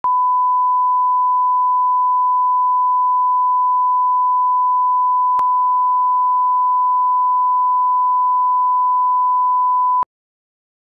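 Steady 1 kHz line-up test tone that goes with colour bars, one unbroken pitch with a faint click about halfway through. It cuts off suddenly near the end.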